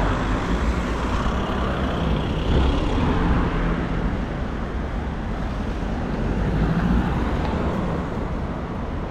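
Road traffic: cars driving past on a city street, with a steady tyre and engine rumble that swells a little as individual cars go by.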